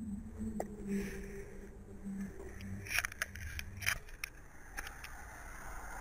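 Close handling noise at a body-worn camera: a few sharp clicks and scrapes, the loudest between three and four and a half seconds in, over a low hum in the first couple of seconds and the noise of passing road traffic.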